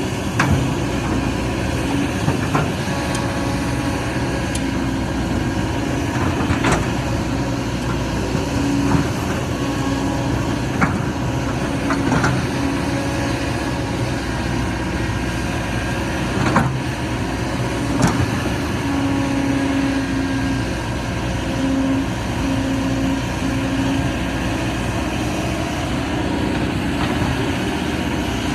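Excavator's diesel engine running steadily under load, its pitch rising and falling, with a few sharp knocks along the way.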